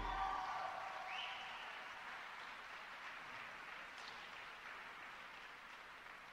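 Arena crowd applauding at the end of an ice dance programme, as the last of the music dies away; the applause fades steadily.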